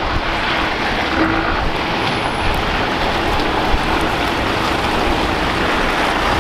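A heavy truck's diesel engine running as the truck drives slowly past, over a steady rumble of city traffic.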